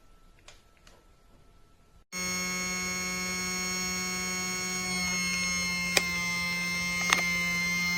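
Near quiet with a few faint clicks, then about two seconds in a loud, steady buzzing tone starts abruptly and holds, with a few sharp clicks over it later on.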